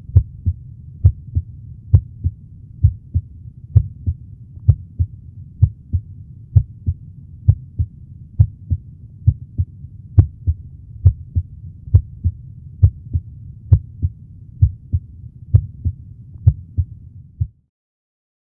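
Heart sounds of a healthy person heard through a stethoscope at the Botkin–Erb point: a steady lub-dub rhythm at about 65 beats a minute, the first and second heart tones about equally loud. The beats stop abruptly near the end.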